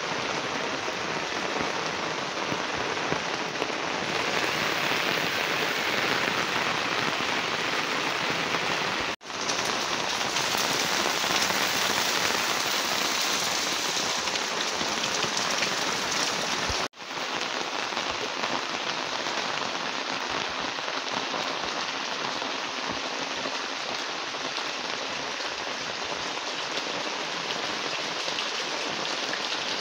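Heavy rain falling steadily onto a flooded street and lane, a dense hiss of drops hitting standing water. It cuts out for an instant twice, about 9 and 17 seconds in.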